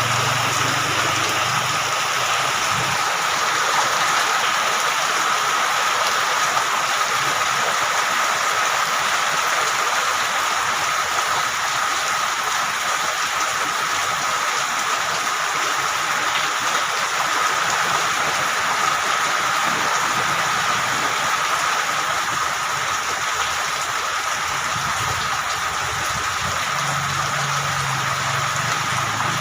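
Heavy rain falling on a corrugated zinc roof: a steady, dense hiss of drops.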